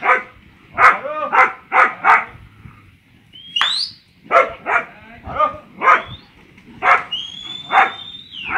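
Cattle-herding dog barking repeatedly at the cattle to drive them, about a dozen sharp barks with a short pause around the third second.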